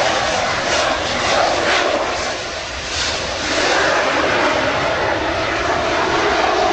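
Military jet aircraft taking off, its jet engine noise loud and steady throughout.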